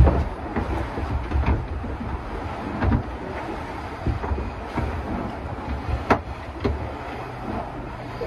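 Handling noises as cables are worked in at the battery inside a hull compartment: scattered knocks and clicks, one sharper knock about six seconds in, over a low wind rumble on the microphone.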